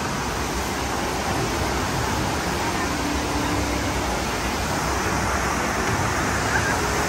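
Steady rush of water pumped over an indoor surf simulator.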